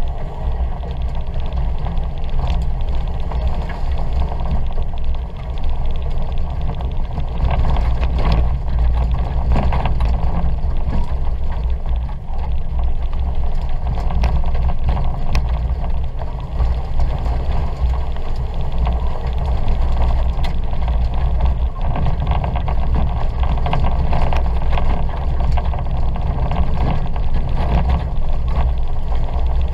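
Ford Fiesta 1.2 engine running hard under racing load, heard from inside the cabin as a steady low rumble with road and tyre noise, broken by frequent sharp clicks and knocks.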